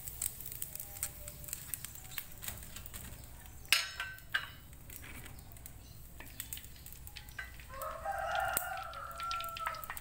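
A rooster crowing in the background, one call about a second and a half long near the end, over the light crackle of cracker frying in hot oil. Two sharp knocks come about four seconds in.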